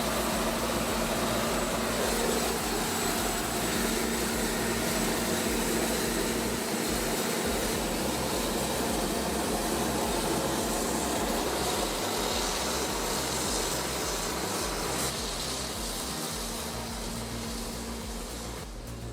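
Heavy machinery running steadily: a constant mechanical drone with a steady hum under dense grinding noise, easing slightly near the end.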